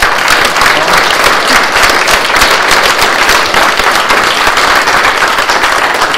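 An audience applauding, many hands clapping at once in a dense, steady patter that starts abruptly.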